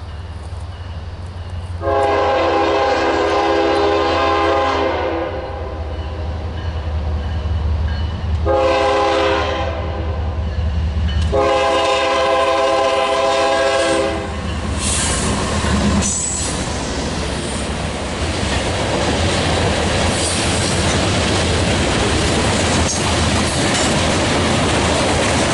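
Diesel locomotive air horn sounding several notes at once in three blasts: long, shorter, then long, over the low rumble of the approaching engine. After the last blast the train rolls past, with a steady rumble and the clatter of wheels on the rail joints.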